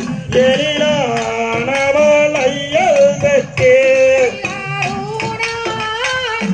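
Tamil valli kummi folk song: a voice sings a winding melody over a steady percussion beat of about two strokes a second.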